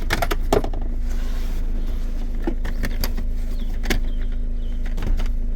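Vehicle engine running steadily, a constant low hum with a few scattered clicks and knocks.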